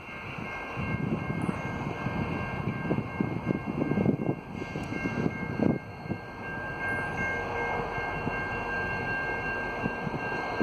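Via Rail passenger train led by an F40 diesel locomotive running toward and past the listener, its engine rumbling and its wheels clattering on the rails. A level-crossing bell rings with a steady repeating ding.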